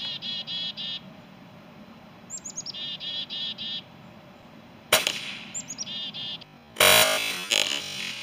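Chickadees calling chick-a-dee: three runs of high sliding notes followed by repeated buzzy notes. About five seconds in comes one sharp crack of a shot from the Benjamin Armada .25 PCP air rifle. Near the end a loud burst of distorted electronic music starts.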